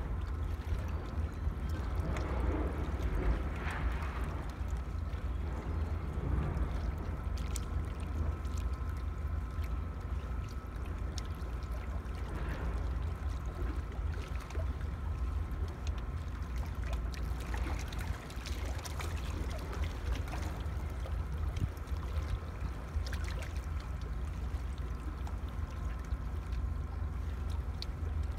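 Shoreline ambience: a low wind rumble on the microphone over the wash of seawater, with a few faint scattered clicks.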